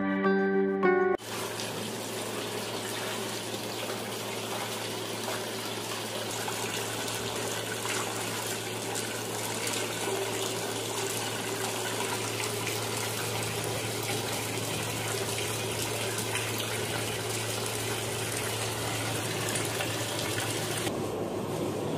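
Tap water pouring steadily into a large metal dough-mixer bowl, over a constant low machine hum. Background music cuts off about a second in.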